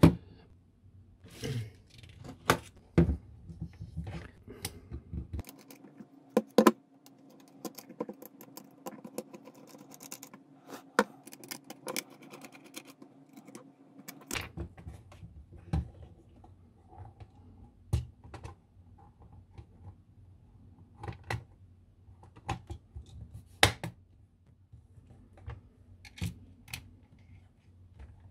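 Irregular clicks, taps and knocks as the telescope kit's tube and parts are handled, turned and fitted together by hand. A faint steady hum runs under the middle third.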